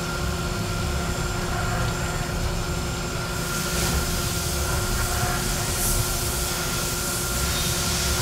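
Five-axis CNC milling machine cutting a metal part under flood coolant: steady machine noise with a few constant tones, and a coolant hiss that thickens a few seconds in.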